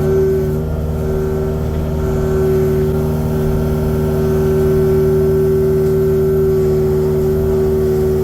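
Kubota excavator's diesel engine running steadily under working throttle, a constant hum with a strong steady whine above it.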